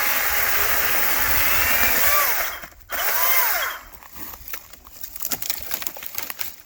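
Echo DCS-2500T 56 V brushless battery chainsaw cutting through a tree trunk, its motor whine bending in pitch under load. It stops about two and a half seconds in, runs again for under a second, then releases. After that come scattered cracks and rustling as the cut trunk comes down.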